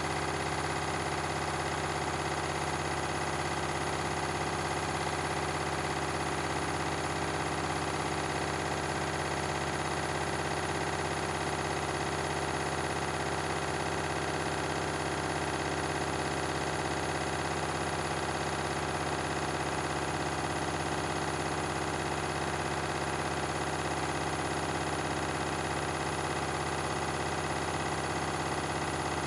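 Beko and Candy washing machines running together at a steady speed, most likely in their spin cycles: a constant motor hum and whine with several steady tones, unchanging throughout.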